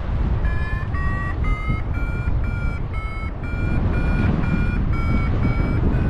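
Paragliding variometer beeping about twice a second, its pitch rising over the first couple of seconds and then holding steady: the climb tone of a glider rising in thermal lift. Wind rushes over the microphone underneath.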